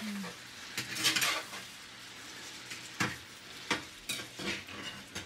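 Chicken pieces being stirred and turned in a frying pan with a metal spoon and spatula: utensils scrape and clink against the pan in several short bursts over a steady sizzle of oil.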